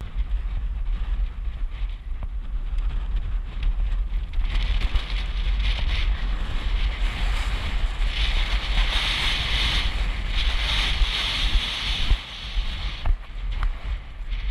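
Wind buffeting a rider's camera microphone on a horse moving fast across open grassland, a steady deep rumble with a rushing hiss that grows louder about four seconds in and eases near the end.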